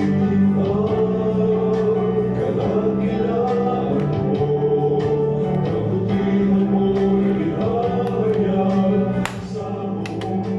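Choral gospel-style music with singing.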